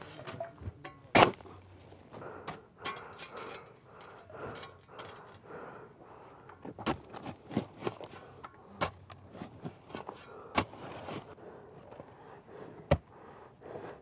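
Shovel scraping and digging into loose soil, with scattered sharp knocks of the blade, as earth is backfilled behind a concrete block wall.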